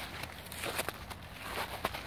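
Footsteps of a person walking over patchy snow and dry grass and leaves: a series of irregular crunches at a walking pace.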